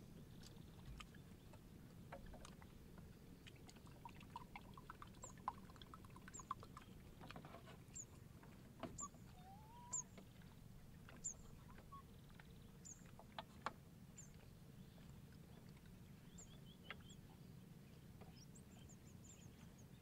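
Faint quiet background with light knocks and taps as a bamboo cup and gourd are handled on a bamboo deck, and a bird's short, high, falling chirps repeating about once a second.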